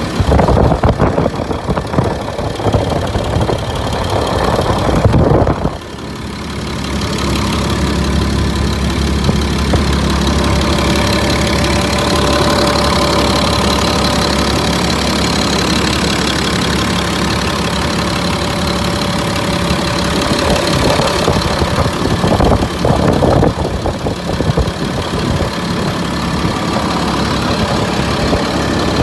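Caterpillar diesel engine of a Peterbilt 330 dump truck idling steadily, heard close up from the open engine bay. Louder, uneven noise covers the engine for about the first six seconds and stops abruptly.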